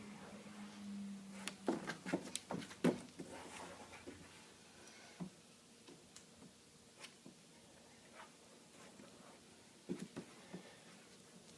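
Light handling taps and knocks, most of them in a cluster about two to three seconds in and a few more near the end, with a low hum fading out at the start and faint room tone between.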